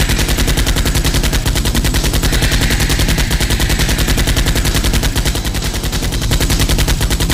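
Sustained automatic gunfire sound effect, a rapid even stream of shots at roughly a dozen a second, stopping near the end. It is dubbed over a Nerf-blaster battle scene.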